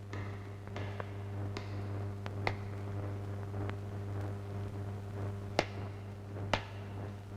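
A steady low hum with a handful of sharp, isolated clicks scattered through it, the loudest two near the end.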